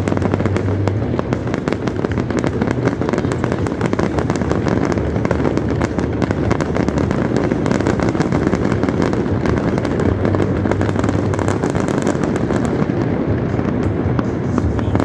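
Fireworks display going off without pause: a dense, unbroken stream of bangs and crackles.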